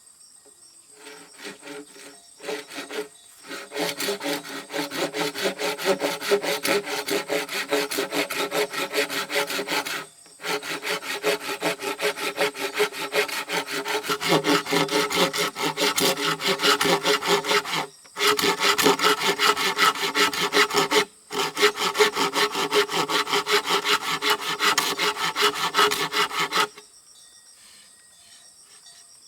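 Wood being sawn by hand, one rasping stroke after another, with three short breaks and a stop a few seconds before the end.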